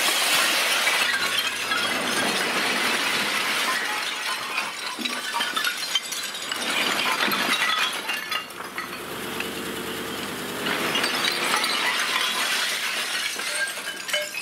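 Broken stone slabs sliding out of a tipped dump-truck body and clattering and crashing onto the pile. The load pours heavily at first, eases to a lull midway where a low steady hum shows through, then clatters on again.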